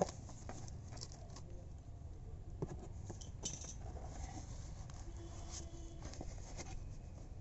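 Cardboard box and packaging being handled as the parcel is opened: scattered soft clicks, taps and rustles over a faint low hum.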